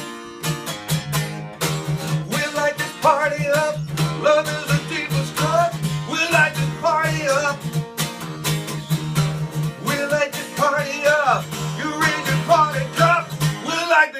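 Strummed acoustic guitar with a man singing wordless vocal lines over it, live.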